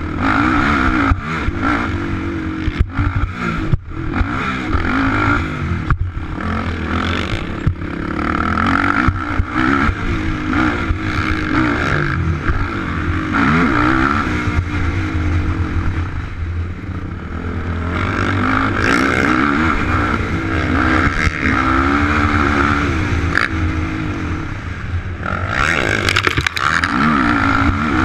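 Sport quad's engine revving up and down under racing throttle, its pitch rising and falling again and again, with knocks and rattles as it goes over the rough dirt track.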